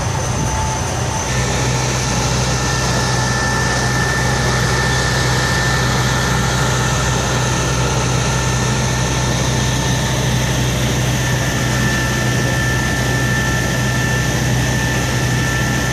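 Fire truck engine running steadily under a constant hum, with a thin steady whine above it. The whole sound steps up in loudness about a second in.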